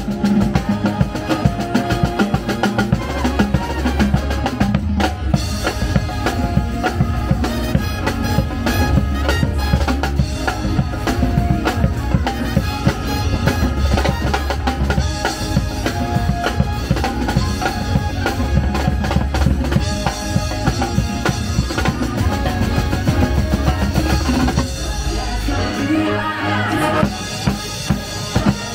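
Loud, upbeat show music with a driving drum-kit beat and deep bass; the bass drops out about 25 seconds in.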